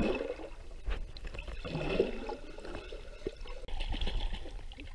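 Muffled gurgling and sloshing of river water heard underwater, swelling about two seconds in.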